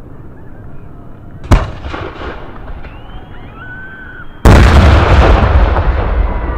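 Aerial firework shells bursting: one sharp bang about a second and a half in, then a much louder bang about four and a half seconds in, followed by a long rumbling tail that slowly dies away.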